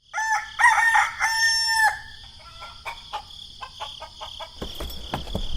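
Rooster crowing once: a few short rising notes, then one long held note. Light scattered clicks and taps follow.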